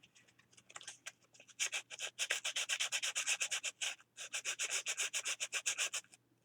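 Sanding the paper page edges of a glued collage book by hand: quick back-and-forth scraping strokes, several a second, faint and sparse at first, then steady from about one and a half seconds in, with a brief pause near the middle.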